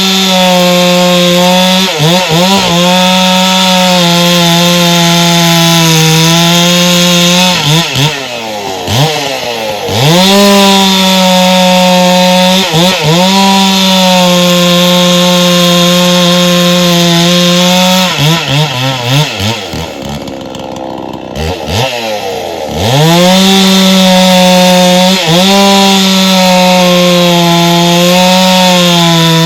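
Two-stroke chainsaw cutting firewood at high revs. About eight seconds in, and again around twenty seconds, the engine drops briefly toward idle, then revs back up.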